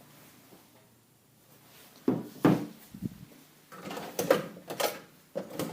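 Objects being handled: a sharp click at the very start, then bursts of knocking, clattering and scraping from about two seconds in.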